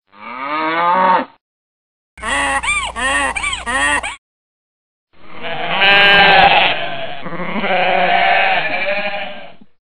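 Bleating, in three spliced pieces: a rising bleat, then a run of short wavering bleats over a low hum, then a long wavering bleat.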